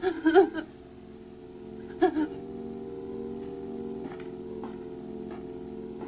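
A person's short whimpering sounds, once at the start and again about two seconds in, then a steady low hum of several held tones.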